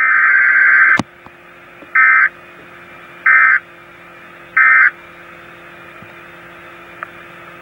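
Weather radio SAME digital alert bursts, buzzy two-tone data screeches. One longer burst ends with a click about a second in, then three short identical bursts follow about 1.3 s apart, the pattern of the end-of-message code, leaving steady radio hiss with a faint hum.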